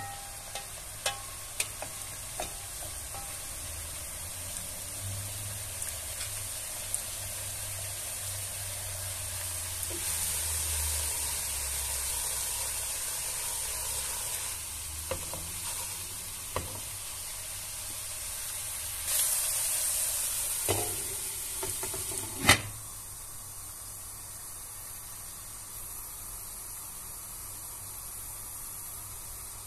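Meat and sliced onions sizzling in a pan, with a few light clicks of handling early on. About three quarters through, a sharp clink as the glass lid goes onto the pan, after which the sizzle continues more muffled.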